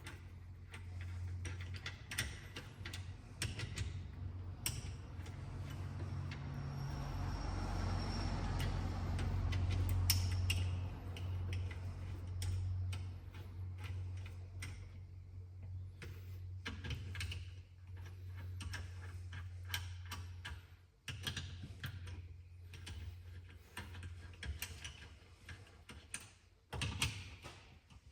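Hand ratchet clicking in runs as loosened bolts are backed out with a spline socket, with short metallic clicks and knocks from the tools and parts, over a steady low hum.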